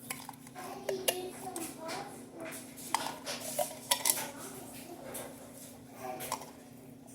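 Kitchen utensils and dishes clinking and knocking in a string of sharp clicks, the loudest about one, three and four seconds in.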